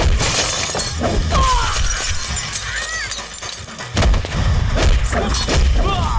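Fight-scene sound effects: a crash of shattering glass at the start, then cries and sharp hits, with heavy low impact thuds from about four seconds in.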